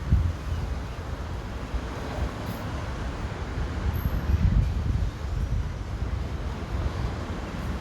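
City street traffic: a steady wash of cars going by, one passing more loudly about two to five seconds in, with uneven low wind rumble on the microphone.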